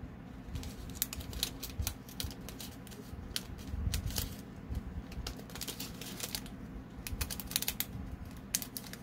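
Irregular clusters of small, sharp plastic clicks and rattles from diamond painting pieces and their small plastic case being handled.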